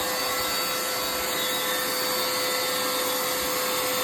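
Vacuum running steadily: a constant rushing hiss with a steady hum held at one pitch.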